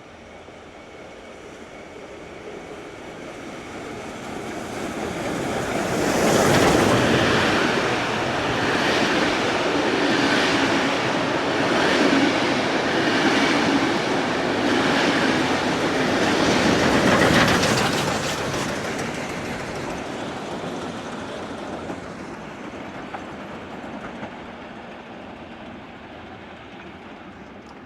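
Train passing through the station. It grows louder over several seconds, its wheels clack over the rail joints at a regular beat for about twelve seconds, then it fades into the distance.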